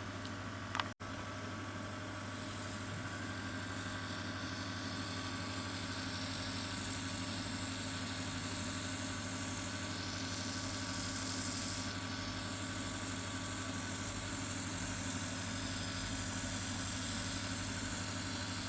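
Oxygen facial machine's air compressor humming steadily while its airbrush-style spray gun hisses out a fine mist of water-based product. The hiss grows a little louder over the first few seconds.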